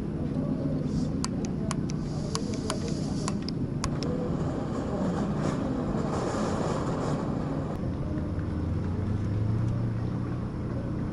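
Steady low outdoor rumble. About a second in comes a run of roughly eight sharp clicks over three seconds, then a short hiss in the middle.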